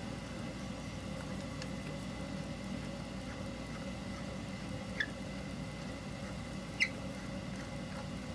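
Two brief high squeaks, falling in pitch, about five and seven seconds in, from fitting the barrel nut that holds a hand plane's rear tote, over a steady background hum.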